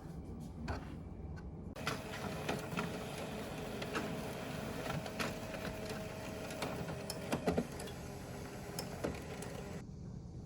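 A printer running for about eight seconds, a steady whir with two held tones and scattered clicks, starting and stopping abruptly.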